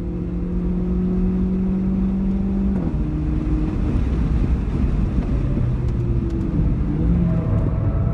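Renault Clio 4 RS's turbocharged 1.6-litre four-cylinder heard from inside the cabin, pulling hard with a rising note. It shifts up about three seconds in, climbs again, then eases off and drops in pitch near the end as the car brakes for a corner.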